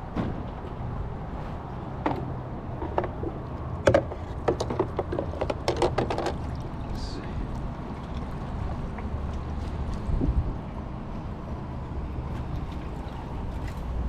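Gear being handled on a kayak: scattered clicks and a quick run of knocks and clicks about four to six seconds in, over a steady low background rumble.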